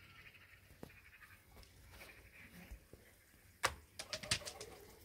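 Faint bird chirping, with a cluster of sharp knocks and clicks about three and a half to four and a half seconds in.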